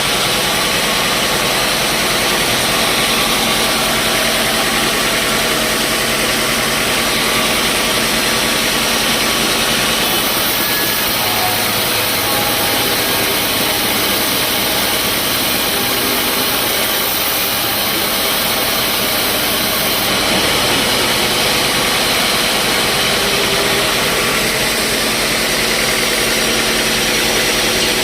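Sawmill machinery running with a continuous, even mechanical noise.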